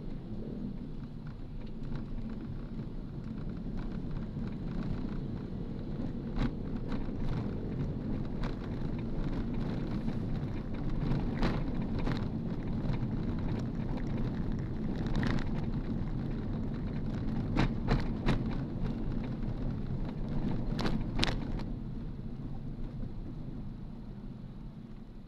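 Steady low rumble of a moving vehicle, with scattered sharp clicks and knocks, several close together between about six and twenty-two seconds in.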